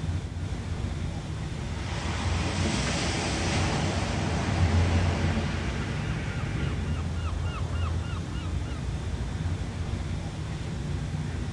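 Ocean surf: a steady low rumble of waves with one wave washing in and swelling about two seconds in, then easing off. Midway, a quick run of about ten short high chirps sounds over the surf for about two seconds.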